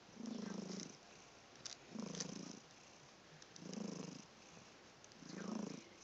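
Sleeping cat snoring: a low rasp with each breath, four breaths about a second and a half apart.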